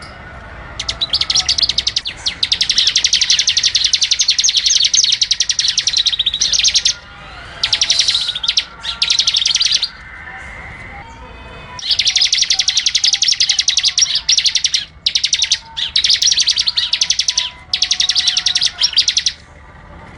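A small songbird singing long, rapid, high-pitched trills in bouts of several seconds, broken by short pauses and a longer quiet spell about halfway through.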